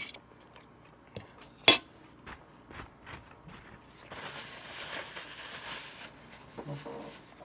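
A sharp clink of tableware just under two seconds in, among a few small clicks and taps, then a paper towel rustling and crumpling for about two seconds as hands are wiped.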